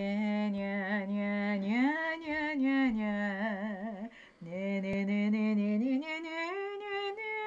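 A woman humming a slow wordless tune in two long phrases, holding low notes with vibrato and sliding up to higher ones, with a brief break about four seconds in.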